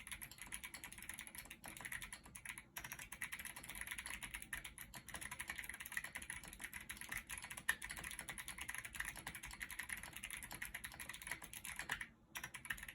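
Continuous rapid typing on a freshly built 65% mechanical keyboard fitted mostly with Kailh Box Jade clicky switches, a few Holy Panda tactile switches and Womier keycaps. The keystrokes stop about twelve seconds in.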